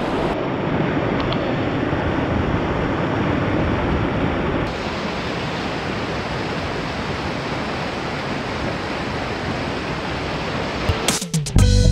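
Steady rush of water from a mountain waterfall, an even, continuous roar of falling water.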